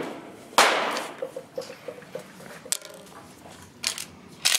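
Gunfire on a shooting range: one loud shot about half a second in, with a long fading echo, then a couple of fainter sharp reports near the end.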